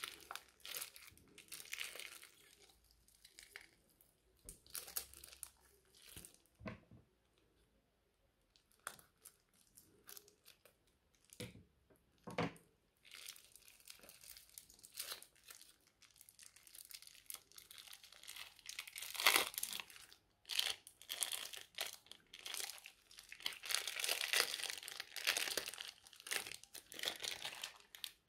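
Slime being squeezed and kneaded by hand, giving irregular sticky crackling and crinkling with foam beads mixed in. The crackles come in scattered bursts at first and grow denser and louder in the second half.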